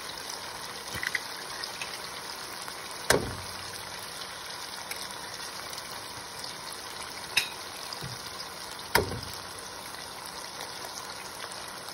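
Tomato-onion masala sizzling steadily in a pan while eggs are cracked into it: three sharp cracks of thick, hard organic eggshell, the loudest about three seconds in and near nine seconds, a lighter one between.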